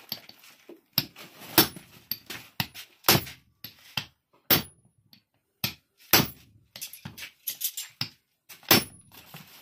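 Hammer blows, metal on metal, driving a ball bearing into the hub of a Kubota combine harvester's tension roller. A dozen or more sharp, uneven strikes with short gaps between them.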